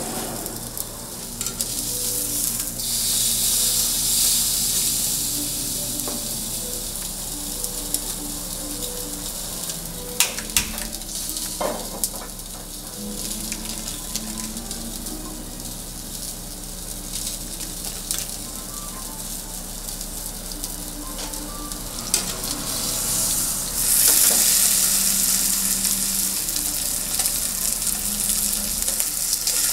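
Beef steak sizzling as it sears on a hot surface. The hiss swells louder twice, and there are a few sharp clicks.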